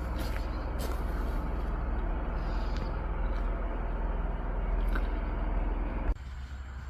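Motor vehicle on the move: a steady low engine and road rumble that cuts off abruptly about six seconds in, giving way to a much quieter background.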